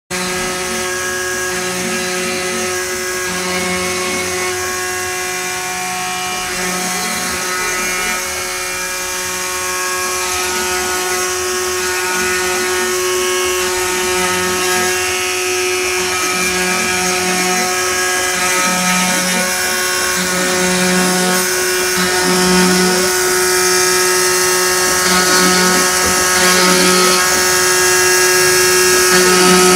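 Homemade CNC router engraving wood: the spindle motor runs with a steady whine, while the stepper motors hum in short stop-start tones as the axes move between cuts.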